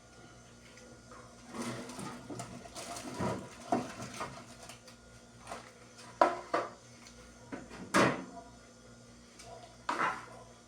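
Refrigerator contents and plastic drawers being handled: scattered knocks and clunks, the sharpest about six and eight seconds in and again near the end.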